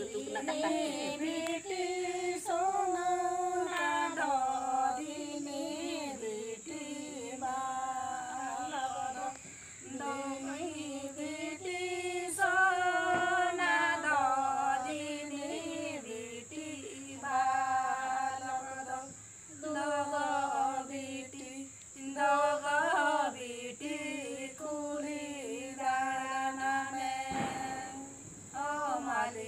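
A small group of mostly women's voices singing a Santali Sohrai festival song unaccompanied, in repeated sung phrases separated by short breaths. A steady high chirring of crickets runs behind.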